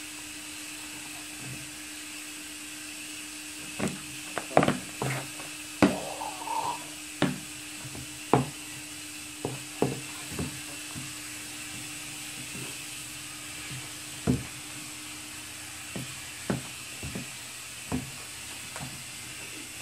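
Hands working homemade slime in a plastic bowl: irregular short clicks and squelches, coming thickest between about 4 and 11 seconds in and thinning out towards the end, over a steady low hum.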